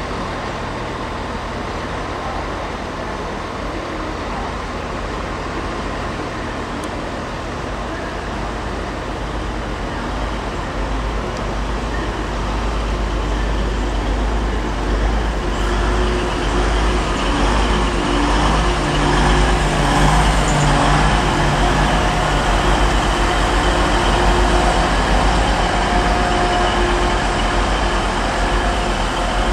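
TransPennine Express Class 185 diesel multiple unit approaching and passing close by, its Cummins diesel engines running with a steady drone. The sound grows louder from about a third of the way in, with a low engine hum and higher whining tones as the unit passes.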